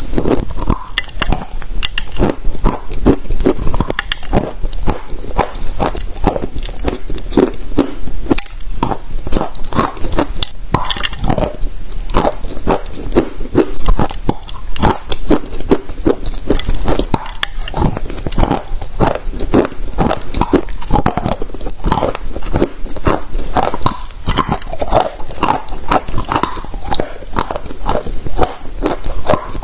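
Chalk being crunched close to the microphone: a dense, irregular run of crisp cracks and crunches with no pause.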